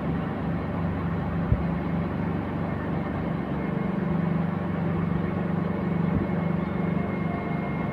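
Heavy diesel engines of a truck-mounted concrete boom pump and a transit mixer running during a pour, a steady low drone. A single sharp knock sounds about a second and a half in.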